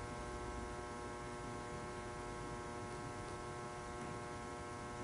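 Steady electrical hum made of several even tones, with a faint hiss underneath.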